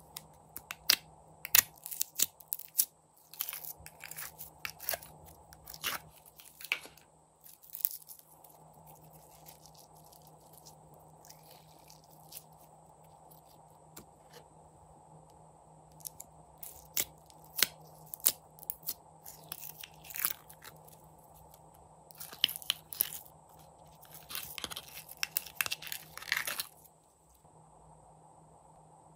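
Glitter slime being worked out of a plastic tub and laid into a glass dish: spells of crisp crackling clicks and pops, with a quiet stretch midway.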